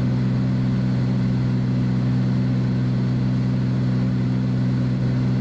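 Beechcraft Bonanza's piston engine and propeller droning steadily in flight, a constant low hum that does not change.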